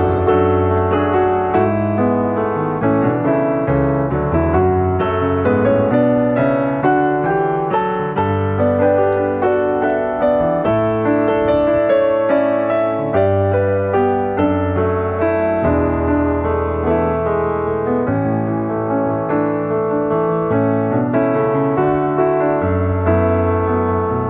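Background piano music: a flowing run of notes over low bass notes held a second or two each.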